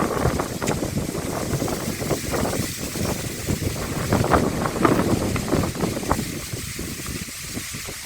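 Muddy water splashing and sloshing in irregular, rapid bursts as fish are worked by hand in a flooded hole. The splashing dies down about six seconds in.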